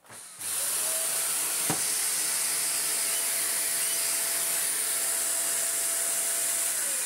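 Shark NV680 Lift-Away upright vacuum cleaner switched on: its suction motor spins up within half a second and runs steadily with a high whine and rushing air hiss, then is switched off near the end and winds down. Only the motor is running; the brush roll is not turning.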